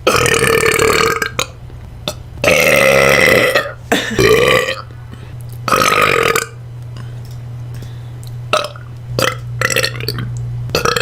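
A woman burping repeatedly: four long, loud burps in the first six or so seconds, then a few shorter, softer ones.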